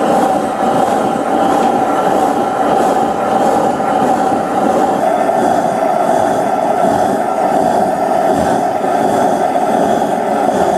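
Blowlamp burning steadily with a loud, even rushing noise, heating the hot bulb (vaporiser) of a Crossley oil engine before it is started.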